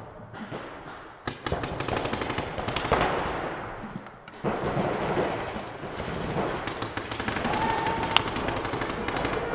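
Paintball markers firing in fast, rattling strings of shots from about a second in, with a brief lull about four seconds in before the firing picks up again, and one sharp loud crack about eight seconds in.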